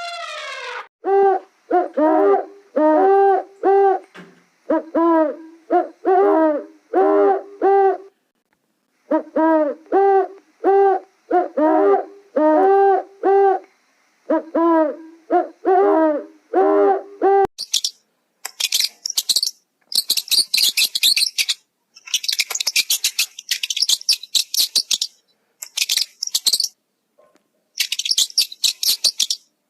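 An animal's hooting calls, repeated in quick groups of short, rounded notes, stop about seventeen seconds in. Rapid high-pitched chirping takes over for the rest.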